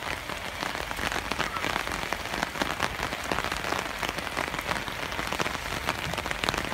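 Steady rain falling, with many sharp, close drop hits throughout.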